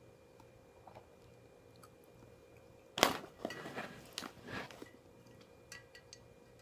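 A person taking a bite of food and chewing it close to the microphone, with crunching, starting suddenly about three seconds in and lasting under two seconds, followed by a few light clicks.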